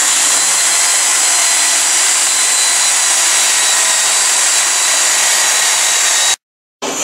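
Cordless drill spinning a landsailer's mast in a sanding jig while the coating is sanded off: a steady, loud motor whine over the hiss of sanding. It cuts off suddenly near the end, then starts again.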